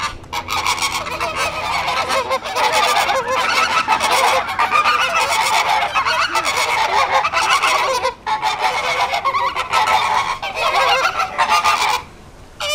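A flock of flamingos honking together in a dense, continuous goose-like chorus of overlapping calls. It dips briefly about eight seconds in, then cuts off sharply near the end.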